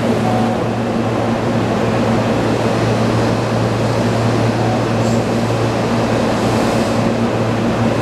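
Keihan 10000 series electric train giving a steady, loud low hum over a continuous hiss, without wheel clatter.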